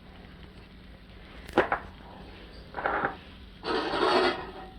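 A seasoning container handled over the pan: a sharp click about a second and a half in, then two short rasping bursts, the second longer, as salt is shaken out.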